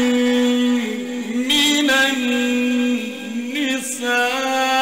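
A male Quran reciter's voice in slow, melodic mujawwad-style recitation. He holds long notes and slides between them with wavering ornaments.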